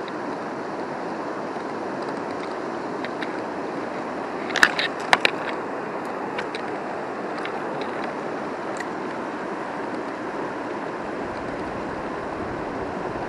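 Steady rush of river water flowing over stones. A short cluster of sharp clicks and clinks comes about four and a half to five seconds in.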